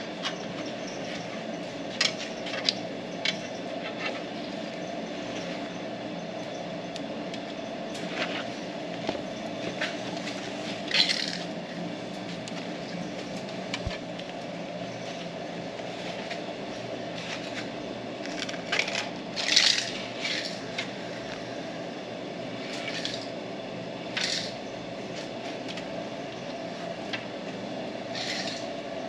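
A steady mechanical hum, with scattered clicks, clatters and rustles of hands and tools working wiring, a cluster of them near the middle and another about two-thirds through.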